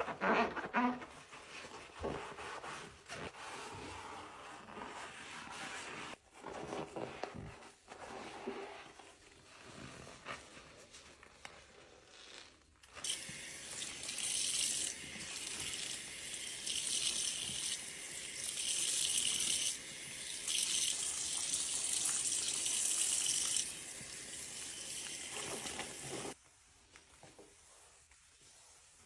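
Sponge scrubbing a sink in uneven strokes. About halfway through, the tap is turned on and water runs with a steady hiss, with a few brief breaks, as the sink is rinsed. The tap shuts off shortly before the end.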